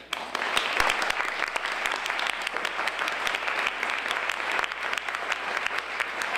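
Audience applauding: many hands clapping, breaking out suddenly and going on steadily as an award recipient is called forward.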